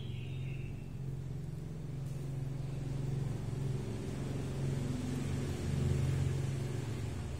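Low, steady engine rumble that swells louder from about three to six seconds in, then eases off.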